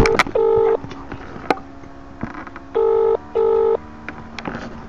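Telephone ringing tone heard down the line while a call connects. It comes in the British double-ring pattern: two short rings close together, a pause of about two seconds, then two more.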